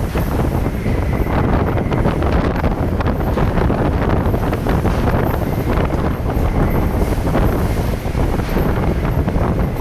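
High wind blowing across the microphone, a loud, steady low rumble.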